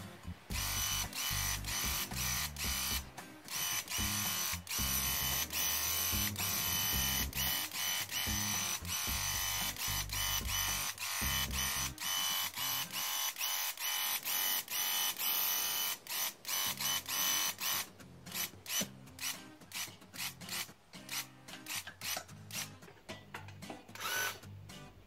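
Graco Ultra handheld airless paint sprayer's motor and pump running as the man sprays, over background music.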